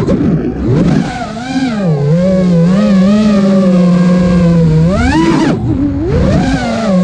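The brushless motors and propellers of a 5-inch FPV quadcopter (Emax RS2205 2300kv motors) whining, the pitch rising and falling with the throttle. The pitch drops and wavers about a second in, then climbs quickly just past five seconds and falls sharply as the throttle is cut.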